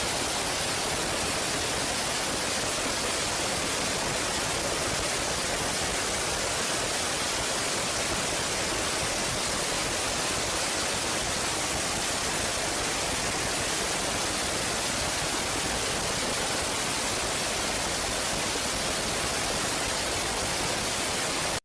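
Steady, even hiss of noise like static, spread across the whole range from low to high at an unchanging level, cutting off abruptly at the end.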